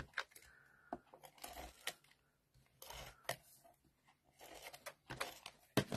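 Handheld tape-runner adhesive drawn along cardstock in several short strokes, each a faint ripping sound, with light taps and rustles of the card being handled.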